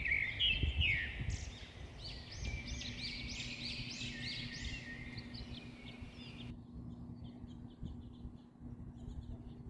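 A songbird singing outdoors, a quick run of repeated clear notes that fades about two-thirds of the way through, over low wind rumble on the microphone.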